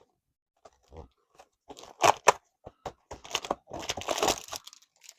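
Cardboard advent calendar door being torn open and its packaging crinkling as the lure inside is pulled out. There are sharp snaps about two seconds in, then a longer crinkling stretch.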